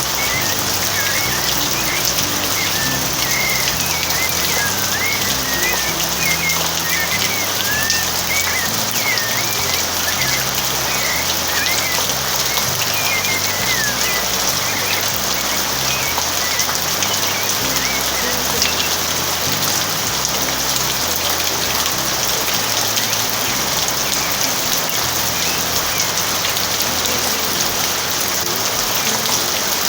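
Steady, heavy rain falling and pattering on surfaces. Through the first half a bird sings quick, warbling, chirping phrases over it.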